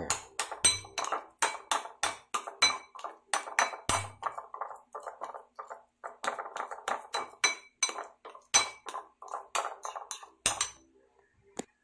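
Metal spoon stirring a wet breadcrumb, egg and milk mixture in a ceramic bowl, clinking against the bowl several times a second, each clink with a short ring. The stirring stops about ten and a half seconds in, with one last clink near the end.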